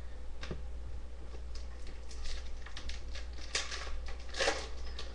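Hockey trading cards being handled and flipped through: a few soft, brief rustles and slides of card stock.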